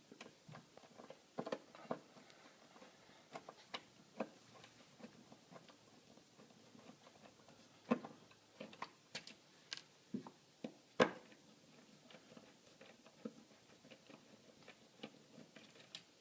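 Screwdriver working at a wall electrical outlet and its cover plate: scattered small clicks, taps and scrapes of metal on plastic and painted wall, with a sharper knock about 8 seconds in and the loudest about 11 seconds in.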